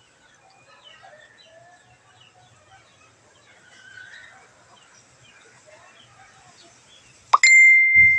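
Faint bird chirps scattered throughout. Near the end comes a sudden loud ringing tone, one steady note with overtones, that fades over about a second.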